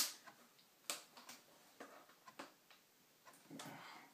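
Plastic clicks and light knocks from a laptop's casing and battery latch being worked by hand to get the battery out: one sharp click at the start, then scattered lighter clicks.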